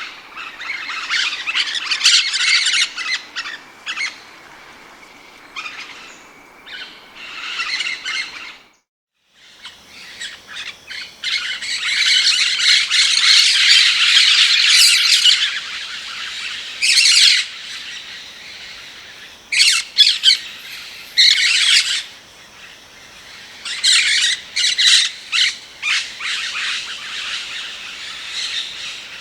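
Rose-headed parakeet squawking and chattering in repeated shrill bursts, breaking off briefly about nine seconds in.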